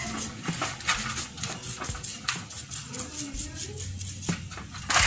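A small brush scrubbing a motorcycle carburetor part in petrol over a metal tray: irregular brushing strokes with light metal clicks and taps.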